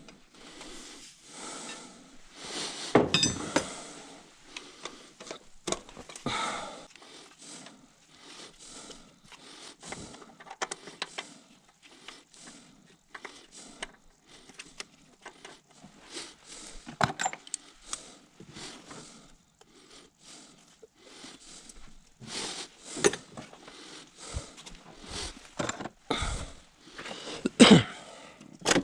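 Metal tools and bolts clinking and clattering irregularly as an engine is unbolted and taken apart, with louder knocks about three seconds in and near the end.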